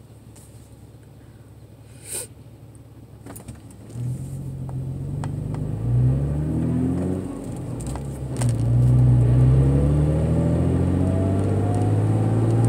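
Car engine heard from inside the cabin: quiet at first with a single click about two seconds in, then the car pulls away and accelerates, the engine pitch rising, dropping at a gear change about seven seconds in, and rising again.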